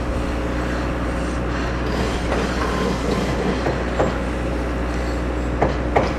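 Steady rumbling outdoor noise over a constant low hum, with a couple of faint knocks near the end.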